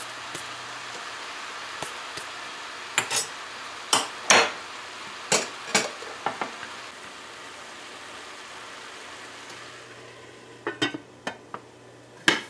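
Metal spoon stirring and scraping shredded cabbage in a metal pot, with sharp clinks against the pot, over a faint sizzle of the frying vegetables. Near the end a few more clicks and then a loud clank as the metal lid is set on the pot.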